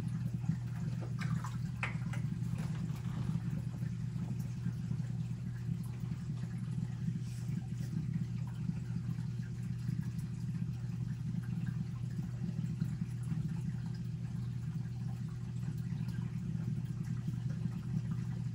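Steady low hum of saltwater aquarium equipment (pumps and water circulation), running evenly throughout.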